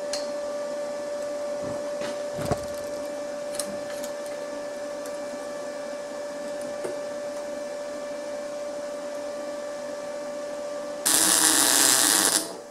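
A steady machine hum with a faint clink about two and a half seconds in. About eleven seconds in, a MIG welder strikes an arc for a short tack weld: a loud hiss lasting about a second and a half that cuts off suddenly.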